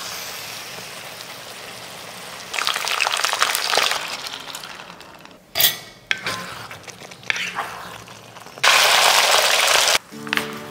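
Cooking sounds in quick succession: a thick gravy sizzling and crackling in a pan as it is stirred, sharp clinks and a crack, then a loud steady rush lasting about a second and a half near the end.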